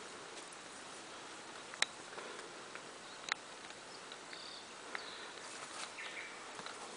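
Forest ambience: a steady faint hiss, broken by a few sharp clicks, two of them louder about 2 and 3.5 seconds in, and a couple of short high chirps in the second half.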